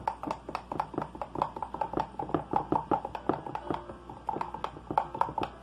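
A metal spoon stirring briskly in a tall glass beer mug, clinking against the glass several times a second. It is mixing yeast and sugar into warm water to activate the yeast.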